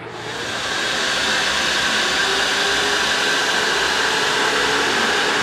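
A loud, steady rushing-air hiss like a blower, swelling in over the first second and then holding level.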